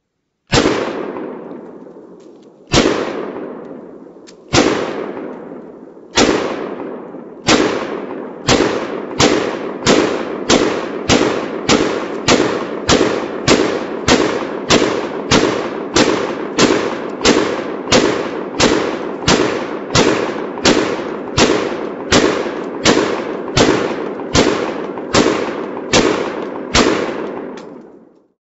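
A long series of gunshots, each with a long echoing tail. The first few are about two seconds apart, then they quicken to well over one a second and keep that even pace until the last one fades near the end.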